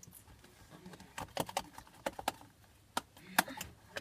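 Slime being kneaded and stretched by hand, giving off irregular sticky clicks and pops: a run of them about a second in and the loudest near the end.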